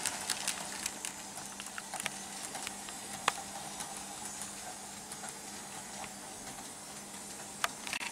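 Märklin H0 model freight train's metal wheels rolling and clicking over the rail joints of stamped-steel M-track, fading as the train runs away into the distance, over a steady low hum. A few sharper clicks stand out, one about three seconds in and one near the end.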